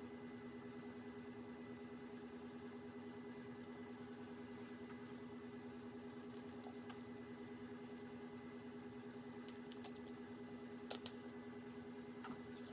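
Faint steady hum with a fast flutter, broken by two sharp clicks about eleven seconds in and a lighter click just after twelve.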